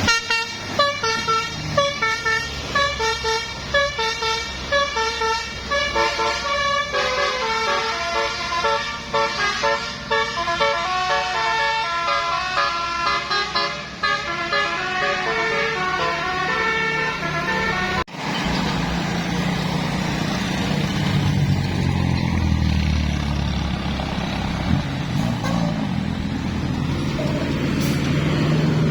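A bus telolet horn, a set of musical multi-tone horns, plays a quick tune of short stepped notes that cuts off abruptly about eighteen seconds in. It is followed by a heavy vehicle's engine pulling, its pitch rising toward the end.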